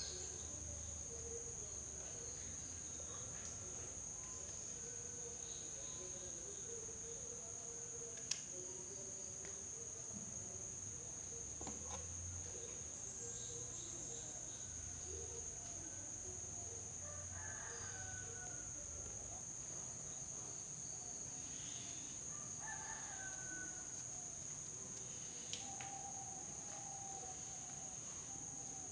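Faint background of a steady high-pitched insect drone, with chickens calling now and then. A single sharp click about eight seconds in.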